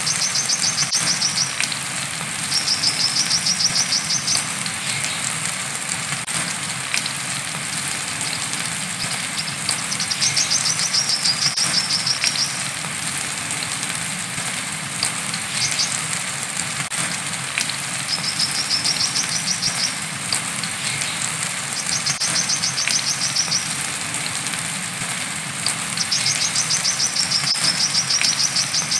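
Brown-throated sunbird (kolibri kelapa) singing its 'wiceh' song: rapid, high-pitched trills of a second or two each, about six of them at irregular gaps, with a few single short notes in between. Steady rain hiss runs underneath.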